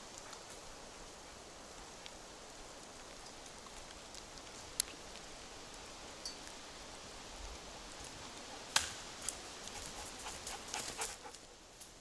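A dog panting close by over faint forest ambience, with one sharp crack a little before halfway and a quick run of cracks in the last third, as of dry twigs snapping underfoot.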